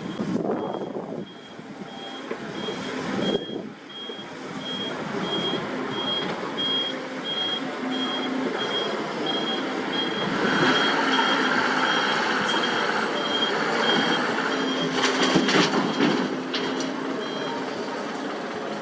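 Heavy-equipment backup alarm beeping about twice a second over a diesel engine running. The engine grows louder about halfway through, a few clanks come near the end, and the beeping stops shortly before the end.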